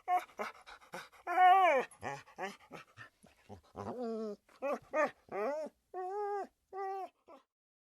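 Siberian husky talking: a string of pitched, drawn-out vocal calls, the loudest a long rising-then-falling one about a second and a half in, followed by several shorter calls that stop about seven seconds in.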